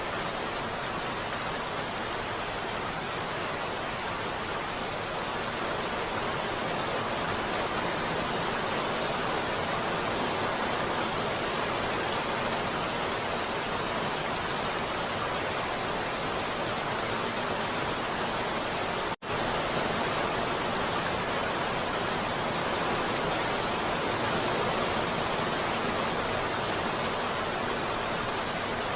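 Heavy rain falling steadily as a dense, even hiss. It cuts out for a split second about two-thirds of the way through, then carries on unchanged.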